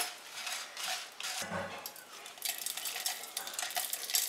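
Light scraping, clinking and rattling of dry whole spices and dried red chillies, stirred with a wooden spoon in a pan and tipped into a steel mixer-grinder jar. There is a brief low thump about one and a half seconds in.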